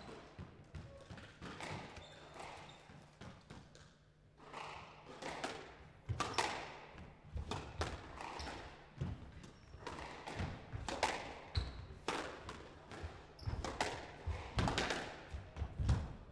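Squash rally: the ball struck by rackets and smacking off the court walls, with players' footsteps, as sharp irregular knocks several a second. The knocks start about four seconds in and come thicker from about six seconds on.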